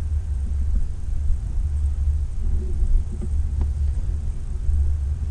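Steady low rumble with no clear pitch, plus a faint murmur a little past halfway and a single click.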